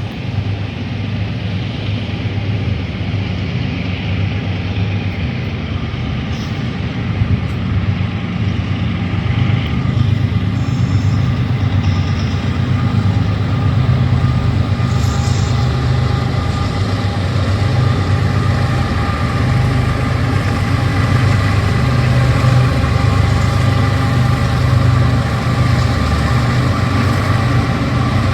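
Diesel freight locomotives running under power with a low engine drone and a fainter steady whine above it, growing gradually louder.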